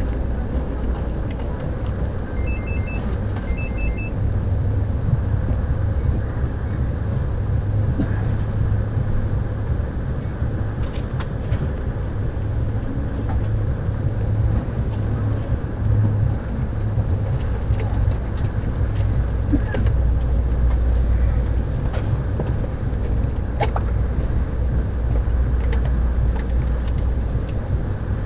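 Steady low rumble of an Amtrak California Zephyr passenger car in motion, heard from inside the car, with a few faint clicks.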